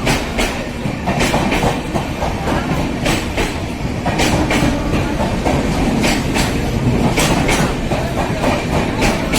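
Passenger express train running past, its coach wheels clattering in irregular clicks over the rail joints above a continuous rolling rumble.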